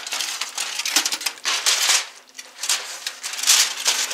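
Aluminum foil crinkling in about four loud, irregular bursts as it is peeled off a baking dish and laid aside, with a brief lull about two seconds in.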